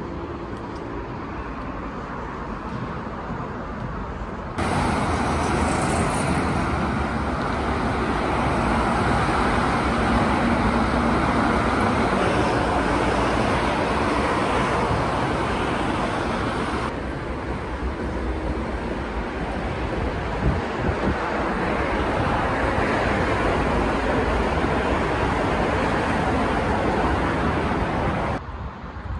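Steady road traffic noise, jumping louder about four and a half seconds in and shifting abruptly twice more.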